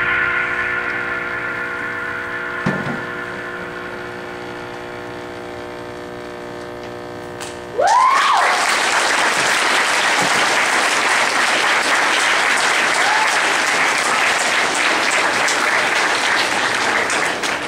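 A sustained musical chord slowly fades away. About eight seconds in, the audience bursts into steady applause with a rising whoop at its start, and the clapping goes on.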